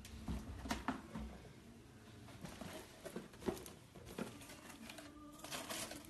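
Faint, irregular clicks and light taps from an automated assembly machine at work.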